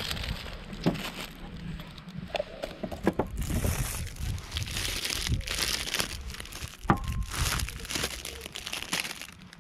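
Irregular crinkling and rustling of something being handled, broken by a few sharp cracks.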